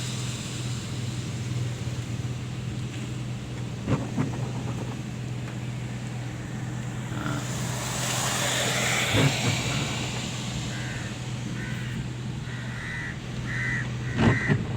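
A vehicle engine runs with a steady low hum, with a few knocks. Near the end there is a run of short, repeated high-pitched calls.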